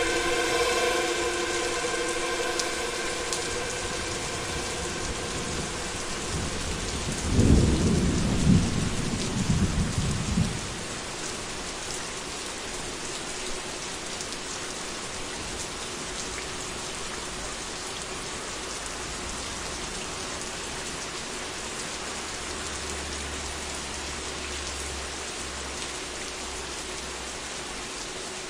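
Steady rain hiss, with a deep roll of thunder swelling about seven seconds in and dying away about three seconds later. A sustained synth drone chord fades out over the first couple of seconds.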